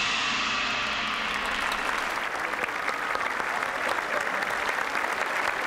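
A large opera audience in a packed arena applauding, a dense, even clatter of clapping that fills in over the first second or so.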